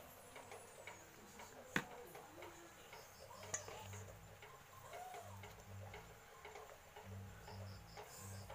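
Faint handling sounds of filled batagor pieces being set into a plastic container: a few small clicks and taps, the sharpest about two seconds in, over a low hum that comes and goes.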